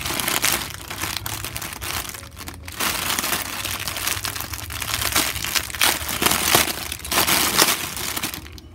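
Clear plastic bag crinkling and crackling as it is handled, with a plush toy inside. The crinkles come in irregular bursts, with a brief pause about a third of the way through.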